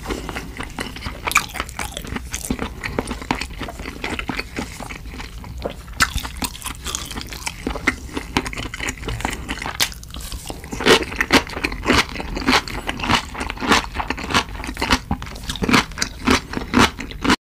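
A person chewing food close to the microphone: a continuous run of short mouth clicks and smacks. About eleven seconds in these become louder, even chews, about two a second.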